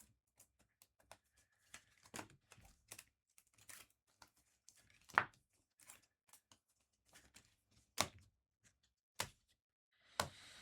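Sparse, irregular light clicks and taps in a small room, a few sharper ones standing out, as of someone working a computer keyboard and mouse and handling items at a desk.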